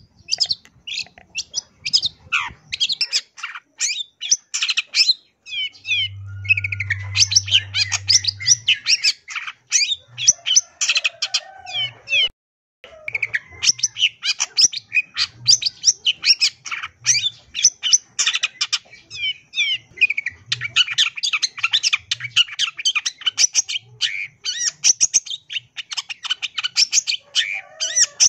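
Long-tailed shrike (cendet) singing a fast, varied run of chattering notes and trills packed with mimicked calls of other birds. It breaks off for a moment about twelve seconds in, then carries on.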